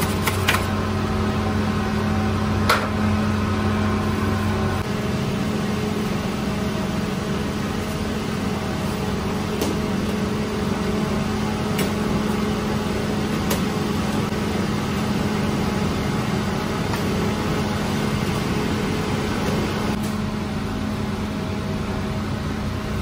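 Steady hum of bakery machinery, with a low drone that stops about five seconds in. A few sharp clicks and knocks sound over it, the loudest about three seconds in.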